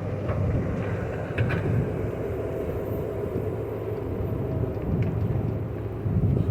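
JCB 426ZX wheel loader's diesel engine running steadily under load while cutting gravel, with a few sharp knocks, the clearest about one and a half seconds in.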